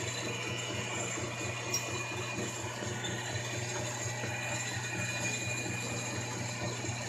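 Metal lathe running steadily while turning a brass workpiece: a constant low hum with several steady high-pitched whining tones above it, and one faint tick a little under two seconds in.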